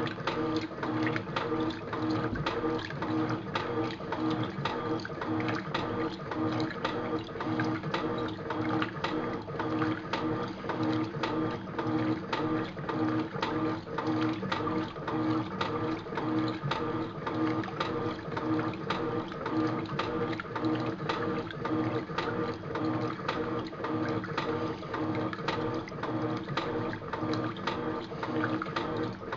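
Electrolux top-loading washing machine in its wash cycle: a steady mechanical hum with a rapid, irregular clatter of clicks as the agitator churns the clothes and water. The machine is running on blown bearings.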